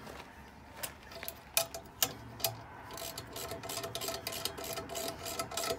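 Ratchet wrench clicking in short irregular strokes as the nuts on a crop-divider mounting bracket are tightened, with a faint steady hum behind it.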